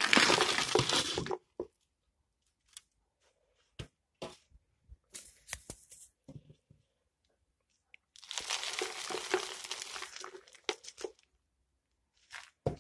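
Dry potting-mix ingredients (pine bark chunks, expanded clay granules, charcoal, moss and peat substrate) poured into a bowl: a dense pour lasting about a second and a half, then scattered clicks and knocks of pieces landing, then a second pour of about three seconds.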